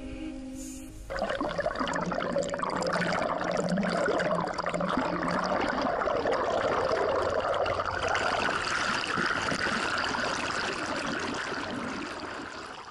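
Music ends about a second in, then water rushes and bubbles against an underwater camera, a steady muffled rushing that fades near the end.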